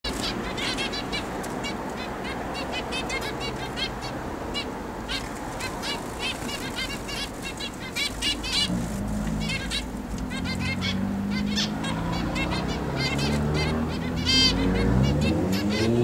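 Several zebra finches giving short, nasal calls in quick, overlapping succession. About halfway through, a low droning hum comes in beneath them, grows louder, and rises in pitch near the end.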